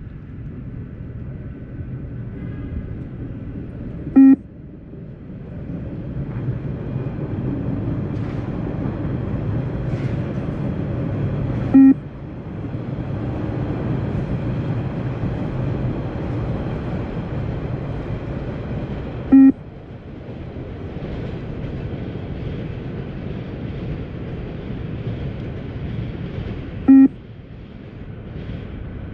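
Beep test (20 m multistage shuttle run) recording sounding four short single beeps, evenly spaced about seven and a half seconds apart, the shuttle pace of level 3. A steady low rumbling noise runs between the beeps.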